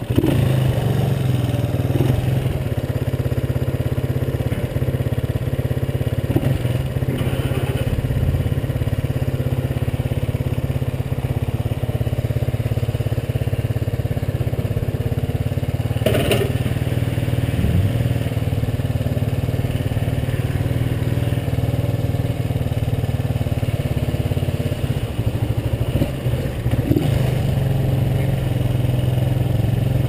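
Honda CB125S single-cylinder four-stroke engine running steadily at idle, just after starting, with one sharp click about sixteen seconds in.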